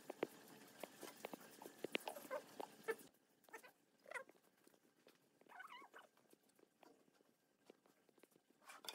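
Quiet bench work: light clicks and taps of pine boards being handled, with a few faint, short chirping animal calls in the background.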